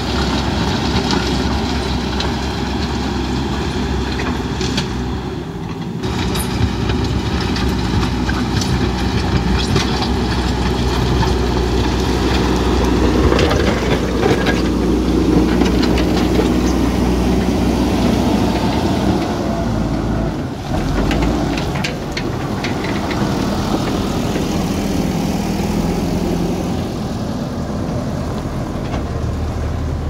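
JCB backhoe loader's diesel engine running steadily under load while its front bucket pushes and spreads gravel, with stones clattering and knocking against the bucket.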